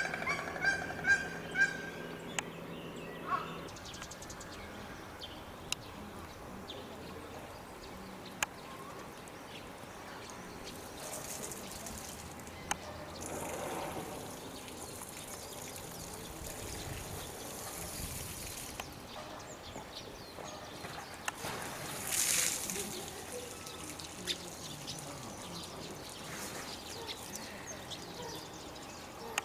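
A quick run of short honking animal calls, about half a dozen in the first three seconds or so, then low outdoor zoo background with a few scattered knocks and a brief hissing rush about twenty seconds later.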